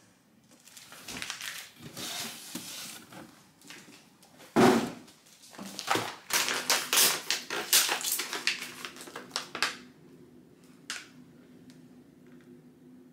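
Plastic packaging rustling and crinkling as groceries are unpacked from a cardboard box, with one heavy thump about four and a half seconds in and quick crinkles between six and ten seconds. A faint low steady hum and a single click follow near the end.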